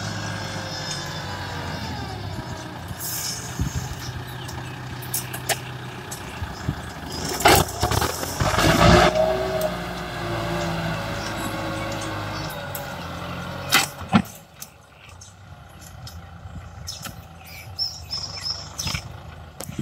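Kubota M6040SU tractor's diesel engine running steadily under load while pulling a disc plough through the soil, with loud knocks and clatter about halfway through and once more a little later. The engine grows fainter in the last few seconds as the tractor moves away.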